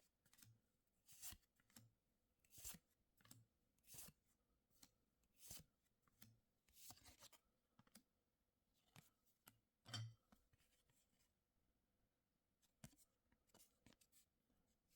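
Faint swishes of trading cards sliding over one another as they are flipped through one at a time, roughly one every second or so.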